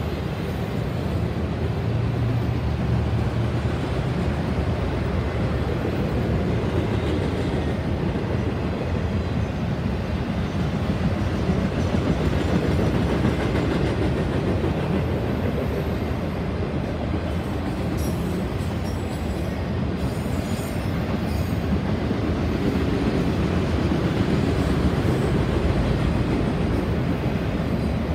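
Autorack cars of a freight train rolling past close by: a steady rolling rumble of steel wheels on the rails.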